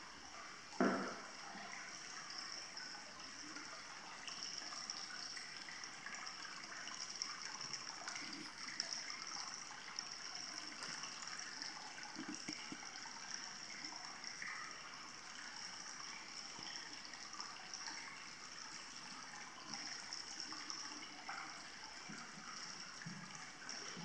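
Hot-spring water trickling and flowing steadily in a wooden bath, with one short knock about a second in.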